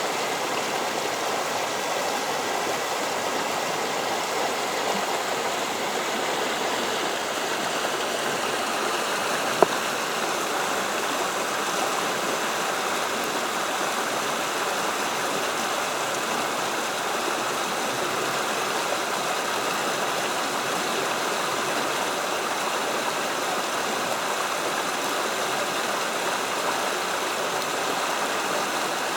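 Creek water flowing steadily. One sharp click about ten seconds in.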